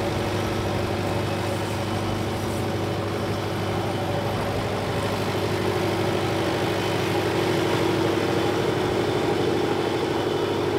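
Fendt 411 Vario tractor's four-cylinder diesel engine running steadily as the tractor drives past, growing slightly louder as it comes close.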